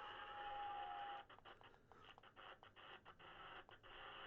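Faint static hiss from a President George 2 CB radio's speaker on lower sideband with no station on the channel. A thin whistle glides slowly down in pitch and stops about a second in; after that the hiss is choppy, broken by many brief dropouts.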